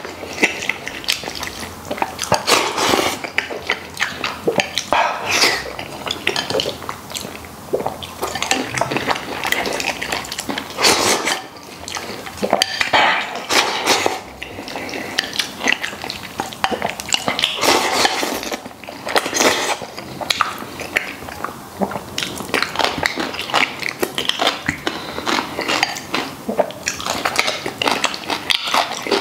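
Close-up eating sounds: repeated slurping and chewing from a bowl, with chopsticks clicking against the ceramic bowl.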